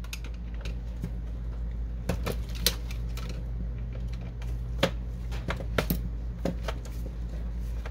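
Scattered light clicks and taps as a hand screwdriver works screws out of the metal carriage frame of a Canon Pixma MP560 inkjet printer, and parts are handled, over a steady low hum.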